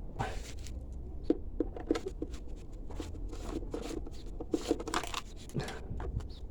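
Hands working on a dirt bike's rear plastics and clips: a run of small clicks and taps with rustling, over a steady low hum.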